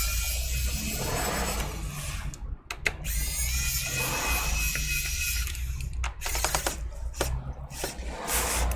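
Small electric screwdriver running in stretches with a low hum and a thin whine, undoing the screws on a laptop's base panel. It stops briefly partway through, and there are a few sharp clicks near the end.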